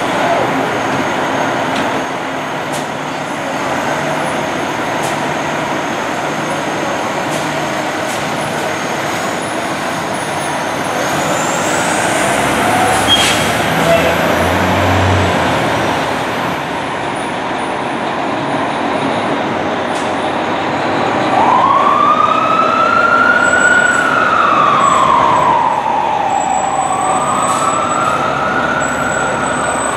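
Fire-truck diesel engines running as the apparatus pull out of the hall on a call. From about two-thirds of the way through, a siren wails: it rises, falls slowly, then rises again near the end.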